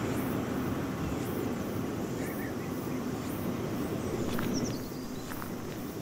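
Countryside outdoor ambience: a steady low rumble with a faint hum, faint high ticks about once a second, and a few short bird chirps around the middle.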